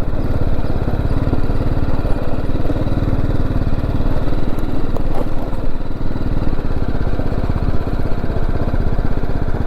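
BMW G310GS motorcycle's single-cylinder engine running steadily under way, with no revving up or down.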